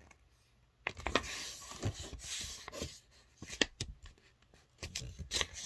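A sheet of A4 paper being folded lengthwise in half: rustling and short crisp crackles as it is handled and creased, starting about a second in.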